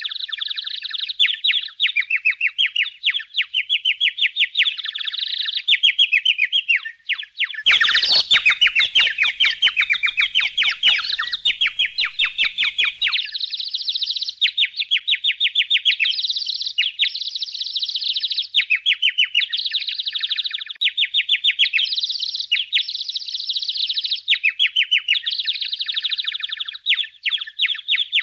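Budgerigars chirping and chattering in a fast, continuous run of short high chirps. From about eight seconds in, for roughly five seconds, the chatter grows denser, with rapid clicks underneath.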